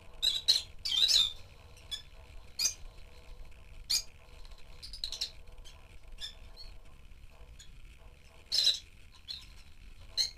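Rosy-faced lovebirds calling with sharp, high chirps and squawks. A quick cluster of loud calls comes in the first second and a half, then single calls follow every few seconds.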